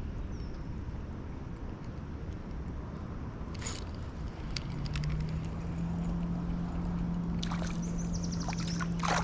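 Wind buffeting the microphone as a low rumble. A steady low hum joins about five seconds in, and a quick run of light ticks comes near the end.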